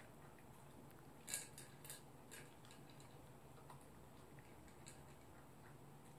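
Toy poodle eating from a bowl: faint, scattered clicks and taps of food and teeth against the bowl, the loudest about a second and a half in.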